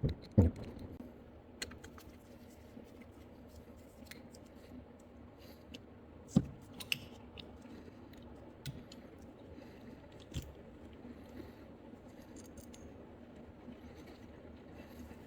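Small metal parts and hand tools being handled while a throttle-body fuel pressure regulator is taken apart: scattered light clicks and a few sharper knocks, the loudest about half a second in, around six seconds and around ten seconds, over a faint steady hum.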